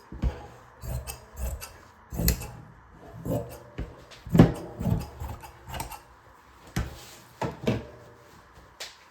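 Crafting materials being handled on a tabletop: irregular light knocks, thuds and rustling, the loudest thud about four and a half seconds in.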